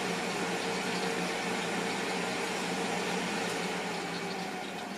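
Philips Airfryer XL running with a steady fan whoosh and a low hum, chicken wings sizzling inside almost like deep frying. The sound drops a little near the end as the timer reaches zero.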